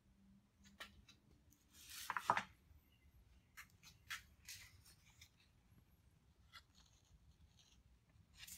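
Faint handling noises: scattered light clicks and short scratchy rustles, the loudest about two seconds in, and a card rustling as it slides over the saw near the end.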